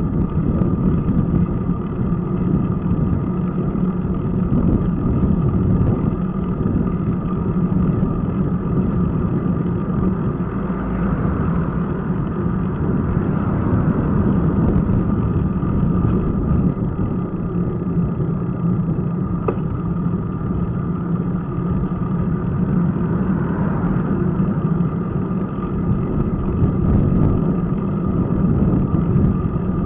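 Steady wind and road rumble on the microphone of an action camera riding on a moving bicycle. A car overtakes about a third of the way in, its noise swelling and passing ahead, and another vehicle swells past near the end.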